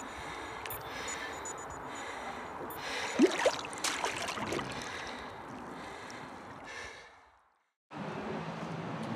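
Water lapping and splashing around a racing kayak, a steady wash of outdoor water noise with a louder cluster of splashes about three seconds in. It fades out near the end.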